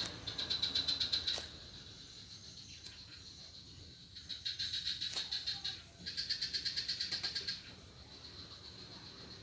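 Background animal chirping: three bursts of rapid, high-pitched pulsed trills, each lasting one to two seconds, with quiet gaps between them.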